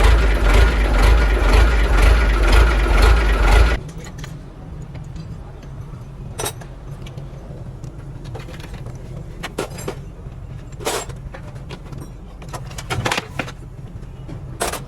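Heavy truck engine running loud for about four seconds, cutting off abruptly to a steady low hum with a few sharp metallic clinks.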